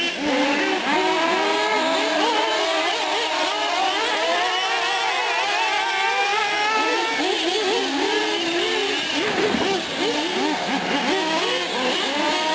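Several 1/8-scale nitro RC trucks and a buggy running laps together, their small two-stroke glow engines revving up and down so that the overlapping engine pitches rise and fall constantly.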